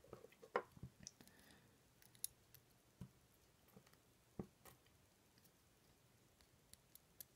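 A few faint, scattered small clicks of tweezers and tiny pins against an ASSA Twin 6000 lock cylinder as a pin is loaded, spread over several seconds with near silence between.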